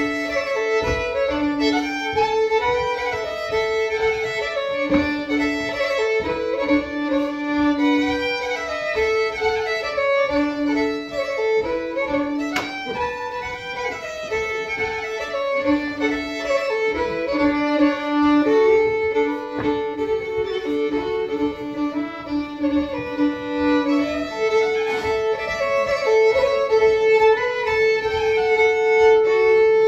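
Fiddle playing a rørospols, a Norwegian polska dance tune, with long held lower notes sounding under the moving melody.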